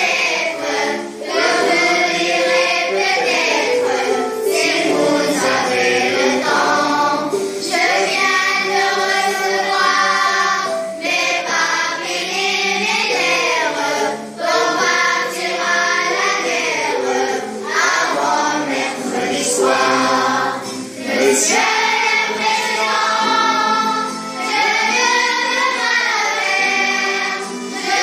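A class of children singing a song together in chorus.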